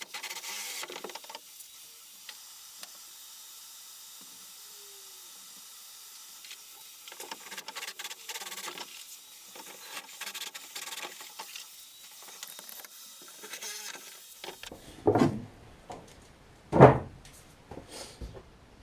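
Materials being handled and worked: light rustling, scraping and crackling, then two loud thumps about a second and a half apart near the end.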